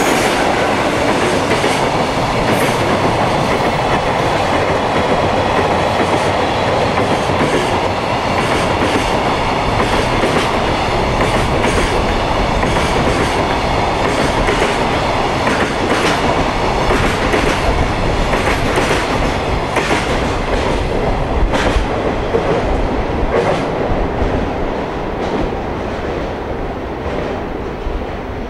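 A freight train of container flatcars, hauled by an electric locomotive, running past close by. Its wheels clatter over the rail joints in a steady run of sharp clacks, and the sound eases off near the end.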